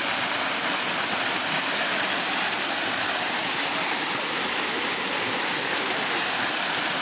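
Steady rush of water falling and flowing at a waterfall, an even noise without breaks.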